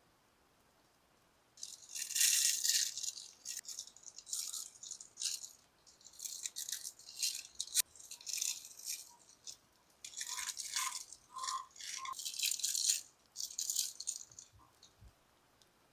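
Dry rattling in irregular bursts of shaking, starting about a second and a half in and stopping about two seconds before the end.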